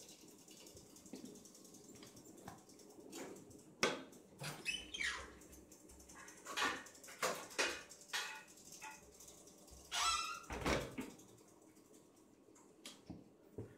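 Squeaks, scrapes and knocks of hand screen printing: a squeegee dragged through ink across a mesh screen and the press and print being handled. The burst of squeaks and knocks comes in the middle, including a short rising squeak.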